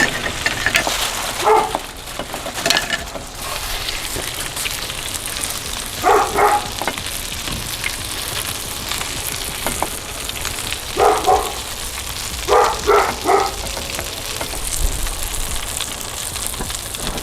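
Meatballs frying in a hot skillet, a steady sizzle of fat. A few short pitched calls cut in, one at a time and then three in quick succession near the end.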